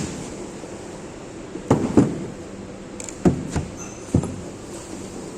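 A steady hum with several sharp knocks and clunks, two close together about two seconds in and more around three to four seconds in.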